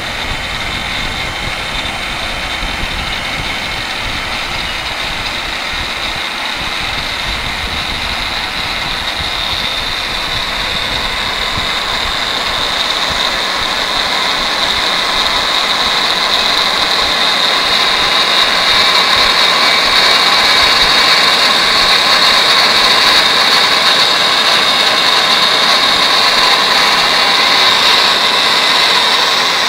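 JAY JMB23 magnetic base drilling machine's electric motor running steadily with a high whine as its twist drill bores into a metal block, growing louder about halfway through as the cut goes deeper.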